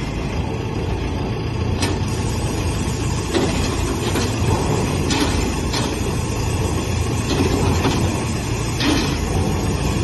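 Engine of a self-loading concrete mixer truck running steadily with a low rumble, with several short sharp clanks or hisses scattered through it.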